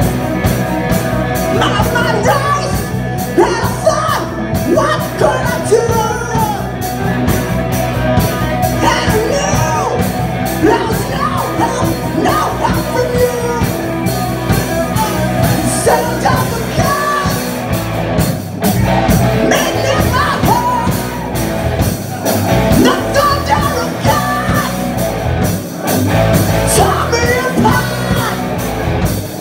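Live rock band playing loud and unbroken: a male vocalist singing over electric guitars, electric bass and a drum kit.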